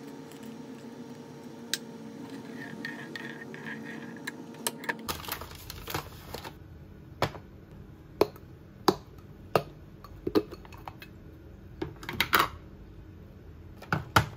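Tableware being set down on a wooden tray: about ten sharp knocks and clicks at uneven intervals, the loudest in the second half, with a short rustle near the end. Before that, a steady low hum with a few light clicks of a metal ladle in a saucepan of soup.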